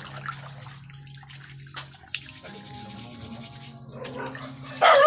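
Mussel shells being scrubbed by hand in basins of water: shells scraping and rubbing against each other, with water sloshing. Near the end a dog starts a loud, wavering whine.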